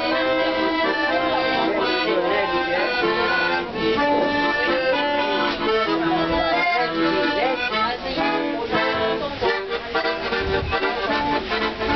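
Accordion playing a tune, a melody over held chords.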